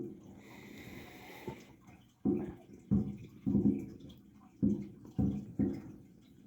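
Fireworks going off outside, heard through the house as a run of sudden, muffled booms, several of them about half a second to a second apart. Behind them is the faint steady water noise of an aquarium.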